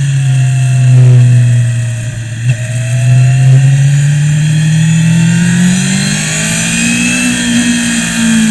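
Onboard sound of a Suzuki GSX-R's inline-four engine on a warm-up lap: the engine note drops, then rises steadily for several seconds as the bike accelerates, easing off near the end.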